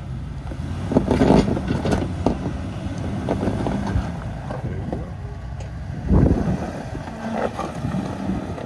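Off-road 4x4's engine running at crawling speed over rocks, with loud crunching and scraping against rock about a second in and again about six seconds in, plus smaller knocks between.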